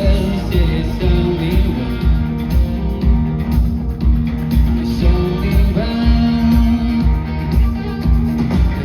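Rock band playing live: a singer over guitars and a steady drum beat.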